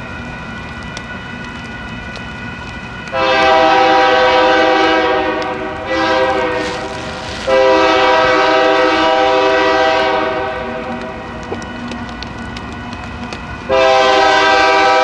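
Union Pacific diesel locomotive's air horn sounding a multi-note chord in four blasts: a long one about three seconds in, a shorter one, a longer one lasting nearly three seconds, and a fourth starting near the end. Between the blasts the approaching train is quieter and steady.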